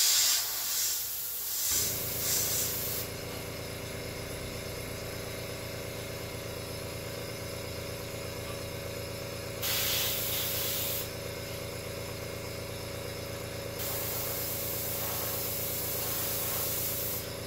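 Airbrush hissing as paint is sprayed through a stencil: a few short pulses at first, then a brief spell and a longer one near the end. Under it a small air compressor hums steadily after switching on about two seconds in.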